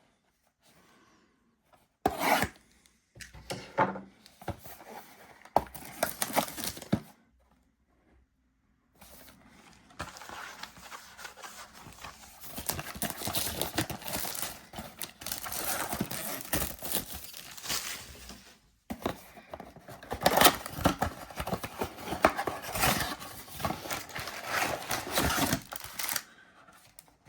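Packaging of a sealed trading-card mega box being torn and rubbed open by hand: a few short tearing bursts, then a long stretch of steady rubbing and tearing.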